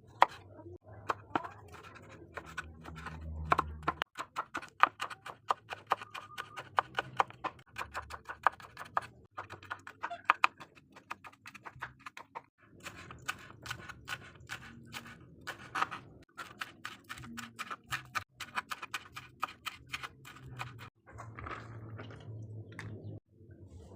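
Kitchen knife chopping vegetables on a cutting board: quick, uneven runs of sharp taps, several a second, with short pauses between runs.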